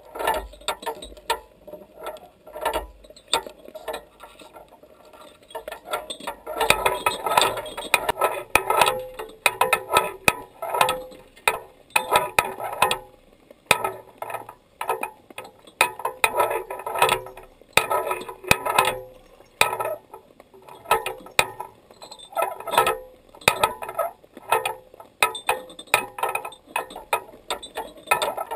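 Rapid, irregular clicking and ticking that comes in dense clusters and gets busier and louder about a quarter of the way in.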